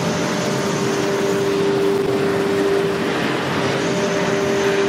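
ATC nesting CNC router carving a door panel in MDF: the spindle gives a steady, even whine over the broad noise of the cut.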